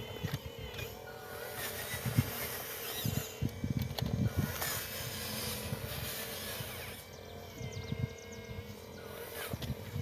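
Radio-controlled model excavator working: the steady whine of its electric motor and hydraulic pump, with irregular low thuds and knocks as the bucket digs and drops soil into a model dump truck's bed, most of them a few seconds in.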